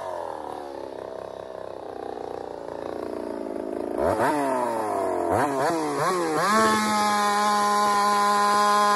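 Ported big-bore Holtzfforma 372 two-stroke chainsaw idling after a cut. About four seconds in it is blipped a few times, then held wide open at a steady high pitch as it cuts into a log, at close to 13,000 rpm.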